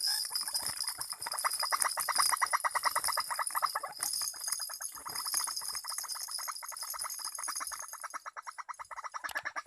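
An animal's rapid trilling call, a run of quick pulses at about ten a second, fading near the end and starting again. Underneath it there is a steady high-pitched ringing.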